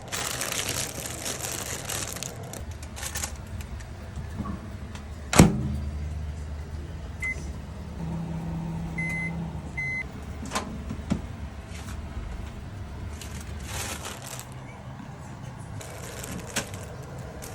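Kitchen food-preparation noises: rustling, a single sharp knock about five seconds in, and a few lighter clicks. Around the middle, three short high electronic beeps from an appliance's keypad, with a low steady hum for a few seconds.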